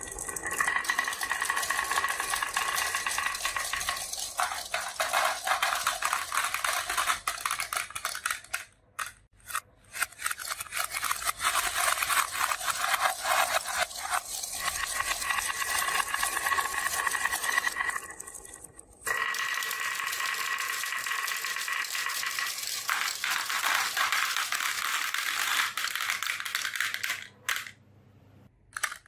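Dozens of black marbles rolling and clattering down a wooden marble run, knocking against each other and the wooden walls in a dense, continuous rattle. It breaks off briefly three times, about a third of the way in, in the middle and near the end.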